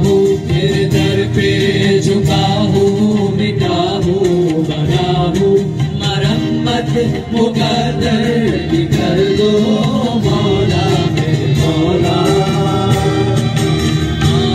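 Live qawwali: several voices singing together over harmonium and acoustic guitars, with a steady percussion beat.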